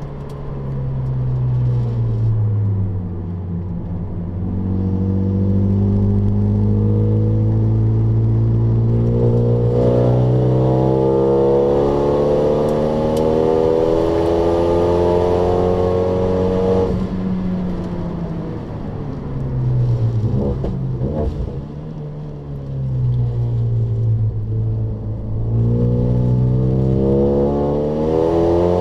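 Renault Mégane's engine heard from inside the cabin under hard acceleration, its pitch rising steadily for about fifteen seconds. It then drops off sharply as the car lifts and slows, wavering lower for several seconds, and climbs again near the end as the car accelerates once more.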